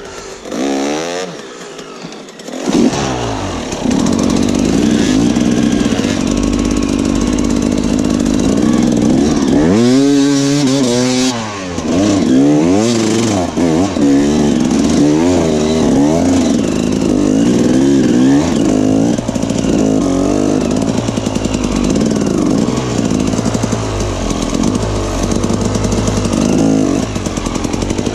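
Enduro motorcycle engine revving up and down over and over, getting much louder about three seconds in, with one long rev that rises and falls near the middle.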